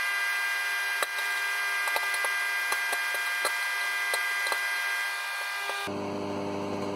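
Microwave oven running, a steady hum with many small pops and crackles from an egg spattering as it cooks under a lid. Near the end the hum drops to a lower tone.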